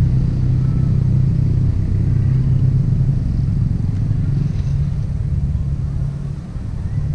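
A motor vehicle engine running, a steady low rumble that eases off slightly near the end.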